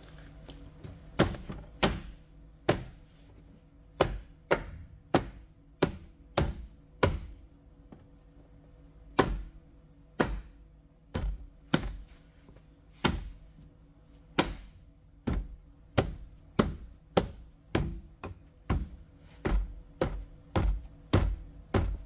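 A long, irregular run of sharp knocks on the Jeep Wrangler's rear door, about one to two a second with a short pause partway through, as the lined-up interior door trim panel is struck to snap its clips home. A faint steady hum sits underneath.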